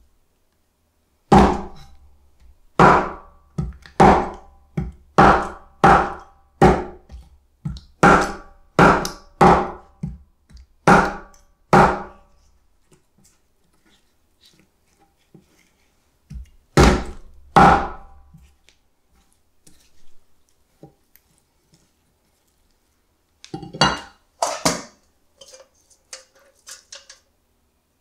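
Kitchen knife chopping through striped beakfish bones on a cutting board. A dozen or so hard chops come about a second apart, then two more after a pause, and a cluster of lighter knocks near the end.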